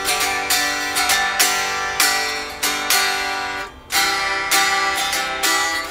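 Unamplified home-built solid-body electric guitar with a Mastery bridge and vibrato, freshly strung and strummed in ringing chords, a new strum every half second or so, with a brief pause just before four seconds. Its intonation is not yet set.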